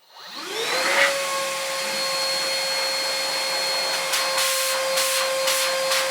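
Milwaukee M18 FUEL 6-gallon cordless wet/dry vacuum switched on with its hose on the blower outlet. The motor spins up with a rising whine, then runs steadily. Several short gusts of noise come in the last couple of seconds.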